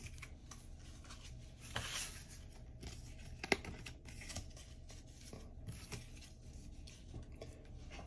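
Faint rustling from trading cards being handled, with scattered light clicks. The sharpest click comes about three and a half seconds in.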